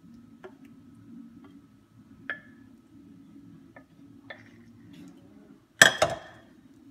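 Wooden spoon scraping thick jello-and-grapefruit filling out of a metal saucepan, with a few light clicks and taps against the pan over a low background hum. About six seconds in, one loud clank as the saucepan is set down.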